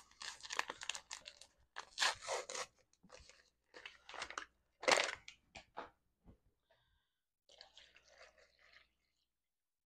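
Paper packet of instant pudding mix crinkling and rustling as it is torn open and shaken out into a glass bowl, in a run of short crackles over the first six seconds. Near the end, a faint pour of milk into the bowl.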